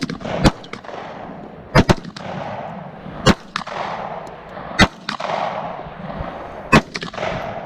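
Gunshots from a firearm fired one at a time at a steady pace, about one every one and a half seconds, with one quick pair near two seconds in. Each sharp crack is followed by a rolling echo that dies away over about a second, and fainter shots sound between them.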